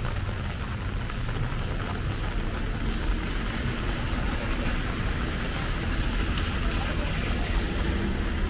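Steady rain pattering on a small umbrella held overhead, an even hiss with no breaks, over a steady low rumble.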